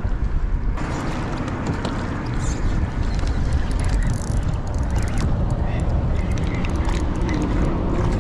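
Wind buffeting the microphone with a deep, steady rumble. About a second in, a rushing hiss of moving water joins it, dotted with scattered small clicks and knocks of gear being handled.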